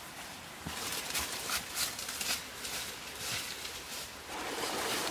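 Footsteps crunching and rustling through dry leaf litter: an irregular run of short crackles, starting about a second in.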